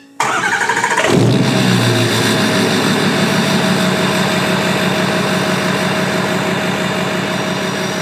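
Engine starting: a short rising crank, catching about a second in and then running steadily and loudly.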